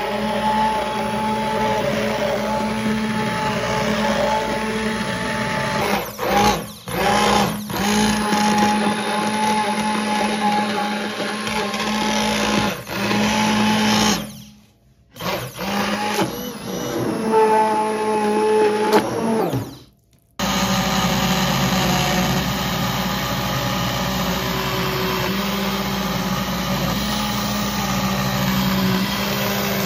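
Handheld immersion blender running in a pot of vegetable soup, puréeing the vegetables. The steady motor whine cuts out briefly a few times, around a quarter, a half and two-thirds of the way through.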